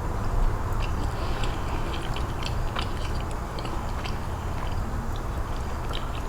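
Close-up chewing and crunching of Doritos steak nachos, with many small crisp clicks scattered through, over a steady low hum.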